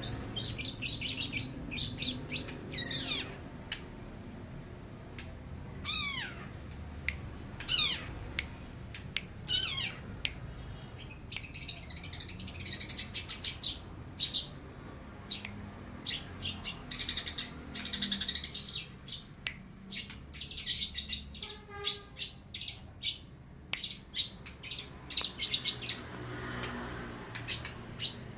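Young long-tailed shrike singing a fast, varied run of high chirps and trills with several steep downward-sliding calls. The song is filled with mimicked lovebird and sparrow calls.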